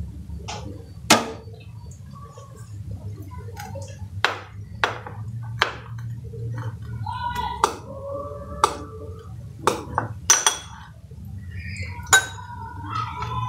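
Kitchen knife cutting a banana in a glass bowl, the blade knocking and clinking against the glass about ten times at irregular intervals, a few strikes ringing briefly.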